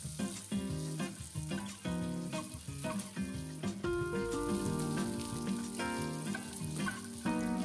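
Basmati rice sizzling as it fries in hot oil, stirred with a wooden spoon to toast the grains evenly, under background music with held, changing notes.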